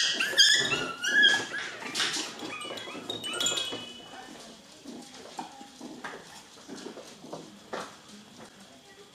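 Seven-week-old poodle puppies giving a run of high, short yips and whines in the first second or so, then quieter scattered clicks and rustling.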